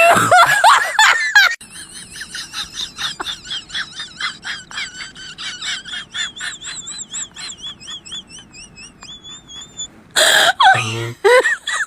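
A person laughing hard. A loud burst of laughter gives way to a long, high-pitched squeaky wheezing laugh in quick rhythmic pulses, which draws out into thin wavering squeals. A loud burst of laughter returns near the end.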